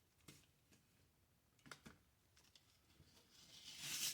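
Faint handling taps on a stack of plywood pieces, then a rising rasping hiss near the end as tape is pulled off the roll and run across the stack.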